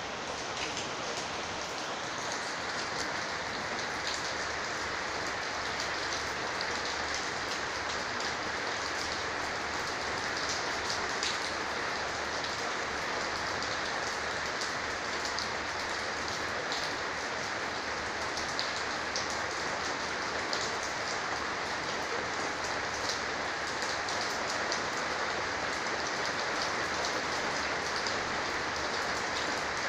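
Heavy rain falling steadily, with many small drop ticks on a corrugated roof.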